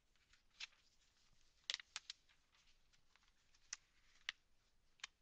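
Near silence: room tone with about half a dozen faint, irregular clicks.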